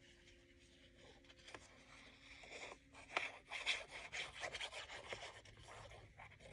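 Paper being rubbed and handled on a work surface: a run of soft, irregular scratchy rustling strokes that begins about three seconds in, after faint background music notes die away.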